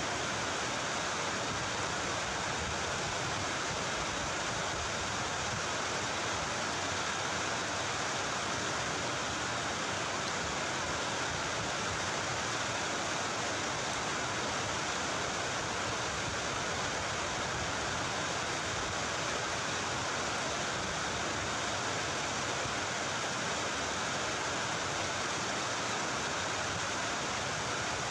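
A steady, even hiss of noise that does not change, with no other sounds standing out.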